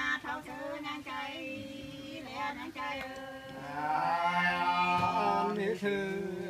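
Unaccompanied Nùng sli folk singing: two voices hold long, wavering notes together, moving to a lower, louder sustained note about halfway through.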